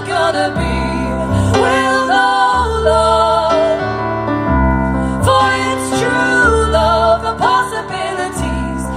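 Live song in a piano arrangement: piano chords changing every second or so under female voices holding long, wavering sung notes without clear words.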